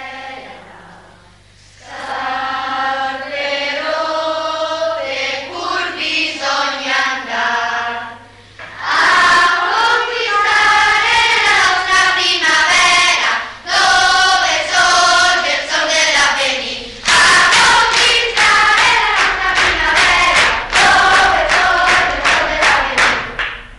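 A choir singing, softer for the first several seconds, then swelling much louder about nine seconds in and ending abruptly.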